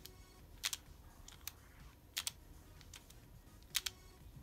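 Plastic clicks of an X-Man Bell pyraminx being turned one move at a time through the algorithm R U R' U R U R'. Each turn gives a sharp click, with short pauses between the turns.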